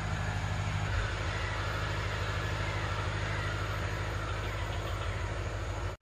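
An engine running steadily at idle, with an even low throb.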